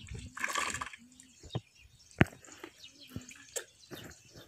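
Hands squelching and splashing in wet mud and muddy water, with dripping and scattered sharp wet smacks; the loudest is a single smack about two seconds in.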